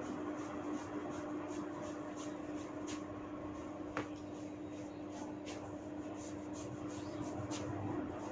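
Hair and scalp being rubbed and pulled in a hair-cracking head massage, giving short scratchy crackles every half second or so, with one sharper click about four seconds in. A steady low hum runs underneath.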